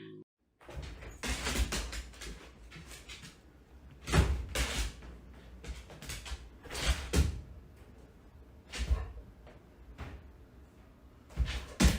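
A series of thumps and knocks, about six, irregularly spaced a second or two apart, with a low rumble between them.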